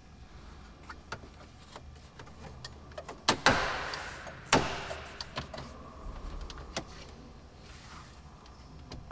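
Clicks and knocks of a tan-covered plastic trim surround being pressed and worked into place around the speedometer on a MINI dashboard. There are scattered light clicks, and the loudest are two sharp snaps about three to three and a half seconds in and another near four and a half seconds.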